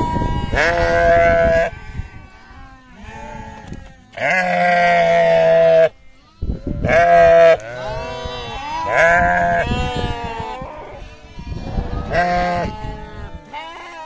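Several sheep bleating again and again, calls overlapping: loud drawn-out bleats every few seconds with fainter bleats between them.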